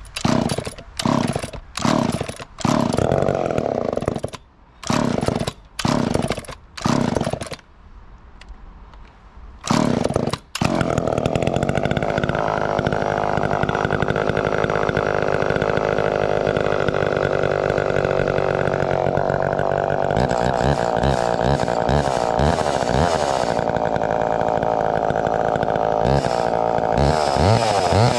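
1969 Homelite EZ 34cc two-stroke chainsaw being cold-started: a string of short bursts over the first ten seconds, then it catches and runs at a steady speed, warming up.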